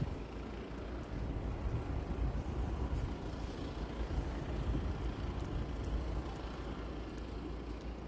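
Blizzard wind gusting over the microphone: a low buffeting noise that swells and eases from gust to gust.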